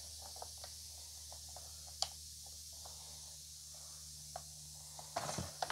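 Quiet room tone: a steady faint hiss and low hum, broken by a few faint clicks and taps, the clearest about two seconds in.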